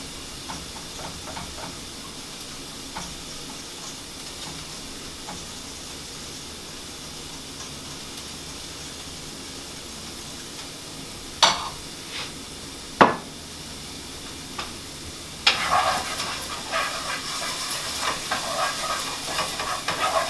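Steady low sizzle of food cooking on the stove, broken by two sharp utensil knocks against a pot near the middle, then a spoon stirring and scraping around a pot through the last few seconds.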